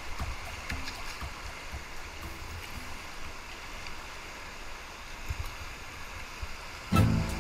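River water rushing around a whitewater kayak, with the splash of paddle strokes. Near the end, loud music suddenly starts.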